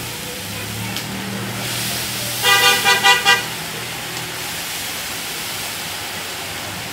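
Raw meat sizzling steadily as it is dropped into a giant pot of hot ghee and fried onions. About two and a half seconds in, a vehicle horn honks about four quick times over roughly a second.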